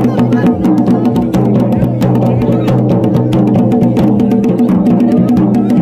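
Garhwali dhol and damau drums beating in rapid, driving strokes over a steady held melody.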